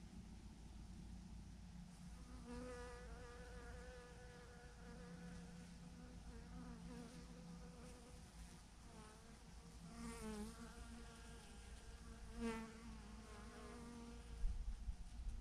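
Bees of a swarm buzzing faintly as they fly past, each buzz rising and falling in pitch as it comes and goes, over a low rumble. A few low thumps sound near the end.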